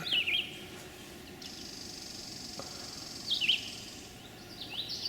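Small birds chirping in short falling notes, with a quick run of them near the end, over a steady high-pitched buzz from about a second and a half to four seconds in.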